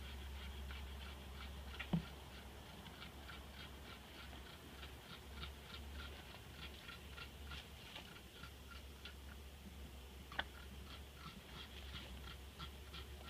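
Two sharp knocks of a wooden beehive frame against the hive box as bees are shaken off it, one about two seconds in and one near ten seconds, over faint high chirps repeating about three times a second.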